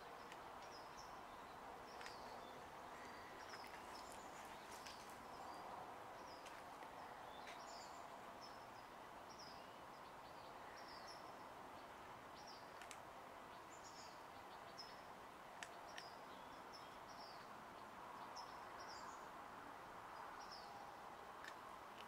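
Quiet outdoor ambience: faint, irregular high chirps, about one or two a second, over a steady low background noise.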